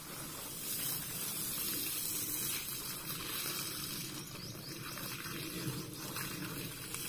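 Water from a garden hose spraying onto plants and soil, a steady rush of running water.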